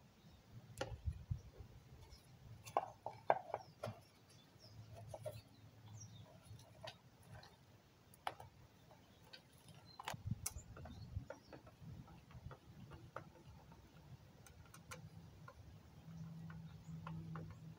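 Scattered light clicks and knocks of a plastic winch control box being handled, pressed onto its plastic mounting bracket and screwed down with a screwdriver, over a faint low hum.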